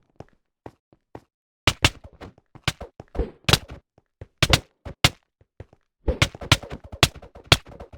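Sharp clicks at irregular intervals, a few faint ones at first, then loud clicks in quick clusters from about a second and a half in.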